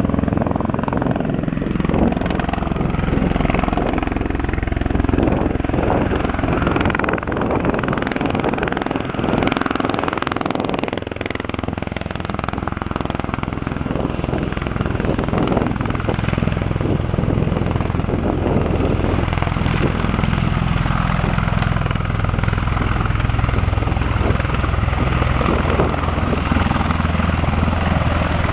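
MV-22 Osprey tiltrotor flying low and slow in helicopter mode, nacelles tilted up, as it comes in to land. Its two proprotors give a loud, steady, deep rotor drone.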